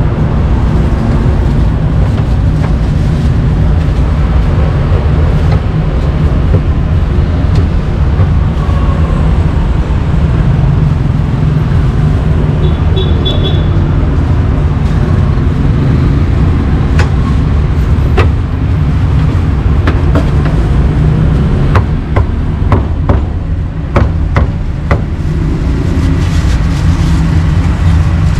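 Steady low rumble of street traffic. From a little past the middle, a run of sharp, irregular knocks sounds over it.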